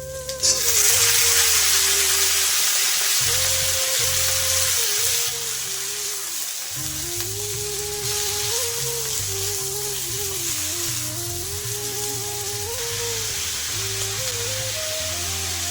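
Onion and vegetables frying in hot oil in a kadai, a steady sizzle that is loudest in the first few seconds, under background music with a melody and bass.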